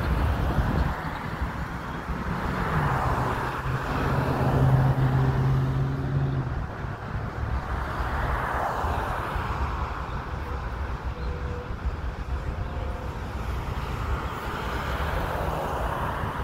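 Road traffic: cars and pickup trucks driving past, their tyre noise swelling and fading about three times. A low engine hum runs for a few seconds near the start.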